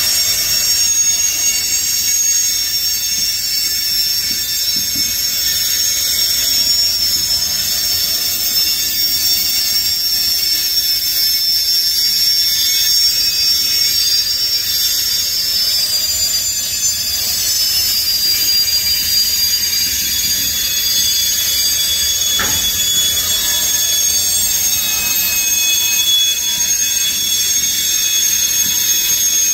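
Covered hopper cars of a slow freight train rolling past with brake shoes dragging on the wheels, making a steady chorus of high-pitched squeals; the uploader takes this for the train's brakes left applied. A single knock sounds about three-quarters of the way through.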